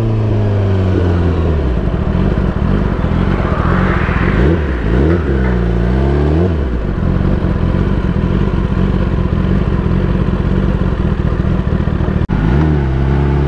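Kawasaki ZX-10R sport bike's inline-four engine running under way, with wind noise on the microphone. Around the middle the engine note drops and climbs again a few times.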